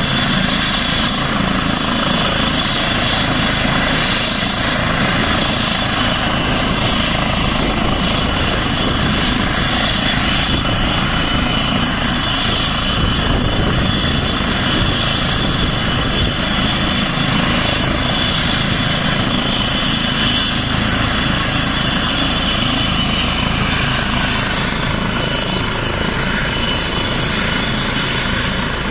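Air ambulance helicopter running on the ground with its rotor turning: a steady turbine whine over the rotor's whir, holding an even level throughout.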